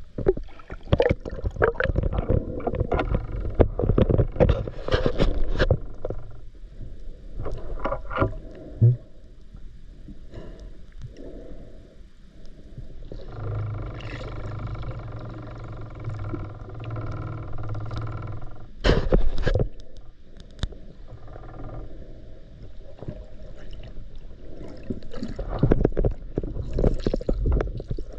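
Water splashing and sloshing around a spearfisher's camera in the water, in uneven bursts. In the middle a steady motor hum runs for about five seconds.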